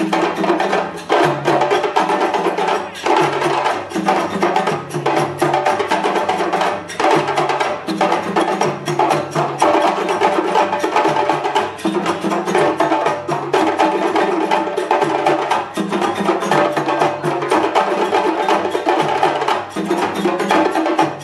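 A djembe ensemble playing together: many hand-struck drums in a fast, steady, dense rhythm, with a repeating pattern of lower drum notes underneath.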